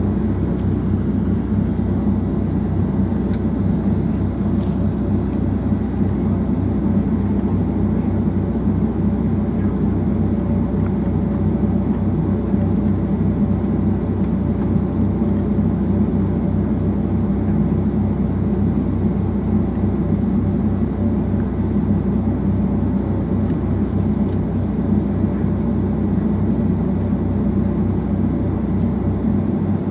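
Boeing 757-200's jet engines heard from inside the passenger cabin: a loud, steady drone with a low hum beneath it.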